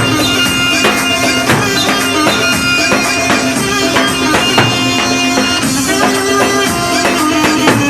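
Arabic folk dance music played on an oriental arranger keyboard ('org'): a reedy, bagpipe-like lead melody over a steady drum-and-tambourine beat.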